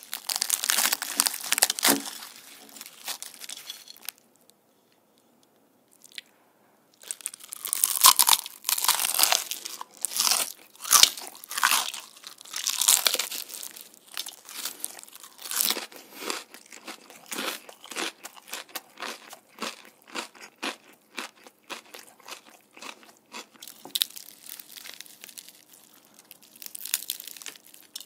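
Crispy fried batter of a Korean market-style fried chicken crackling as hands tear it apart. After a brief pause, loud crunching bites and chewing of the fried skin follow.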